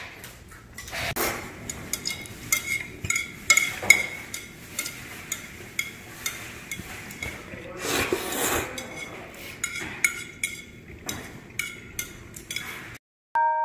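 Chopsticks and spoons clicking and scraping against ceramic plates and bowls as people eat at a table, many small irregular knocks throughout. Near the end the sound drops out and a soft electric-piano tune begins.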